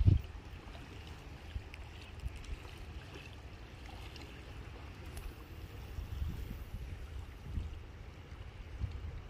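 Low, uneven rumble of wind buffeting the microphone, with one sharp thump right at the start.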